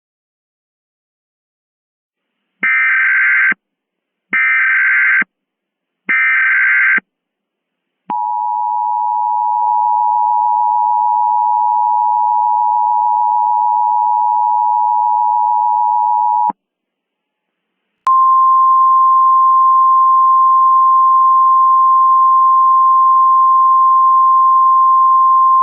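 Emergency Alert System header: three one-second bursts of digital data screech, then the two-tone EAS attention signal held for about eight seconds. After a short pause, a single steady alert tone starts and holds.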